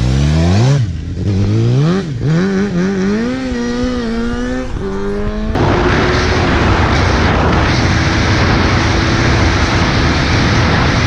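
Suzuki GSX-R750 inline-four motorcycle engine revving up and down in repeated blips, rising in pitch. About halfway through, a sudden loud rushing noise sets in and the engine is held at a steady high pitch.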